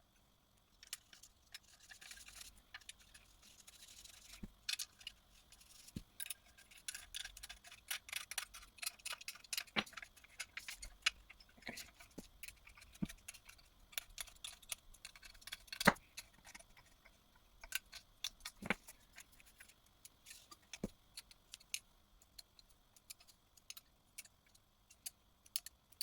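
Small metal clicks and clinks of screws and a hand tool as a short shifter is screwed onto its mounting plate, irregular throughout, with one sharper knock a little past halfway.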